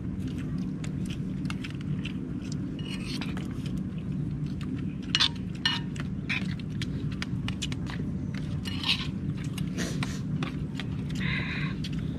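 Light clinks and knocks of dishes and utensils over a steady low hum.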